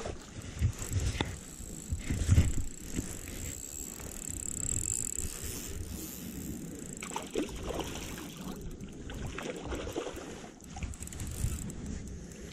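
Wind rumbling on the microphone, with small splashes from a hooked fish struggling at the surface and a couple of louder low knocks about two seconds in.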